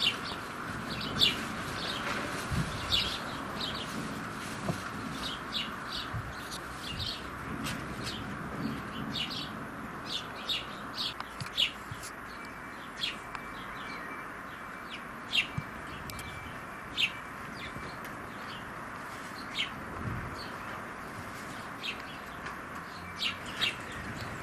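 House sparrows chirping: many short, separate chirps scattered throughout, over steady background noise.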